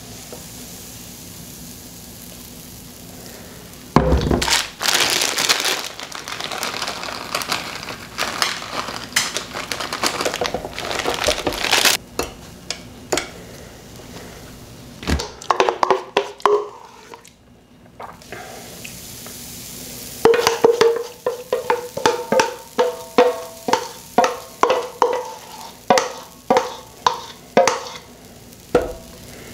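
Waffle batter sizzling in a hot electric waffle iron. Later comes a quick run of scraping strokes around a stainless steel mixing bowl, with the bowl ringing, as the last of the batter is scraped out.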